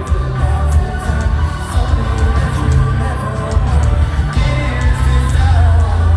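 Live band playing loudly through a venue's PA, with heavy bass and drums and cymbals ticking steadily, and a crowd cheering under the music.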